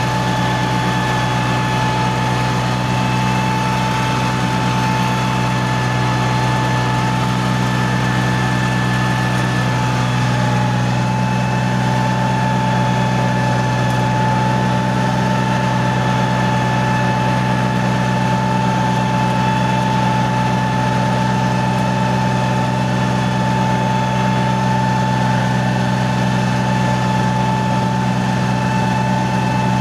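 Four-wheel farm tractor's diesel engine running steadily at constant speed, with a steady whine over the engine note.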